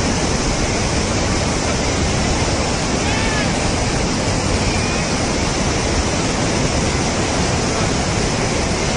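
Muddy floodwater of a flash flood rushing through a wadi, a loud, steady, unbroken rush of water noise.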